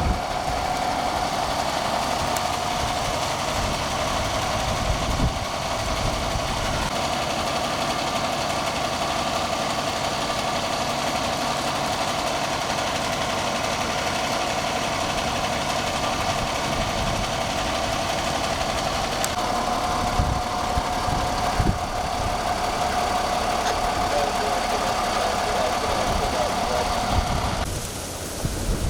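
Fire engine's diesel engine idling steadily with a constant whine, while gusty wind buffets the microphone. The engine sound cuts off near the end, leaving only wind.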